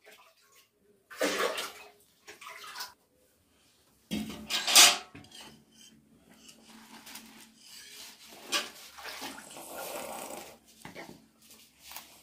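Stainless-steel pots and bowls clanking and scraping as they are handled and stacked, the loudest clatter about four to five seconds in. Quieter handling noise with a few clicks follows.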